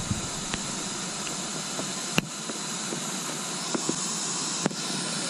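Steady hiss of air escaping from a PVC inflatable boat as it is let down, with two sharp clicks, the first about two seconds in and the second near the end.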